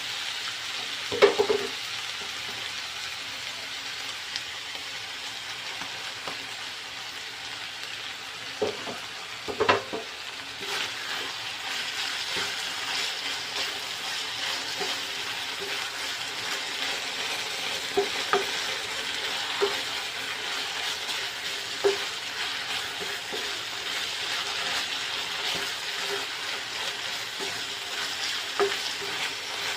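Ground meat frying in a pan with a steady sizzle, stirred now and then, with occasional sharp knocks of the utensil against the pan.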